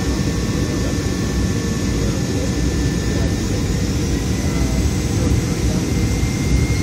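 Steady cabin noise of an Alaska Airlines Boeing 737 jet on its approach to land: a low rumble of engines and airflow with faint high whines on top.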